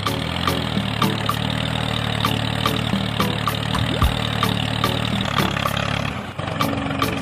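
A small motor running steadily with a low hum and regular ticking about two to three times a second. Its tone shifts higher about six seconds in.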